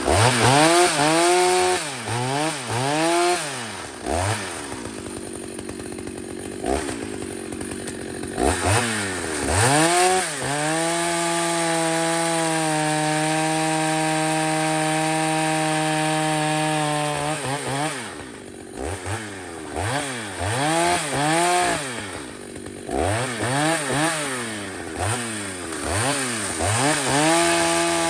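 Two-stroke chainsaw engine revved in quick repeated blips, its pitch rising and falling, then held at full throttle for about five seconds midway before dropping back and blipping again.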